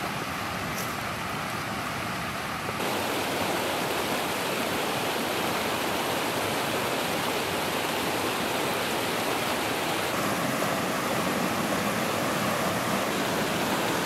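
Fast mountain creek, swollen with spring snowmelt, rushing over rocks and logs as a steady wash of white water that gets louder about three seconds in.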